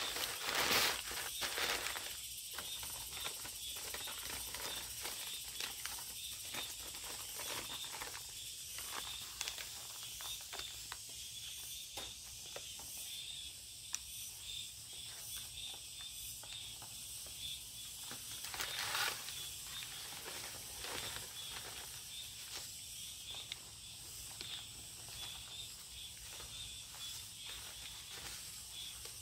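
Dry potato starch being worked through a metal mesh sieve into a steel basin. It makes a soft hiss of powder with many small scrapes and taps, and there are two louder rushes, about a second in and near the twenty-second mark.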